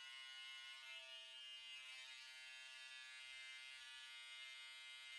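Electric hair clippers running with a steady buzz while they are worked over the hair above the ear.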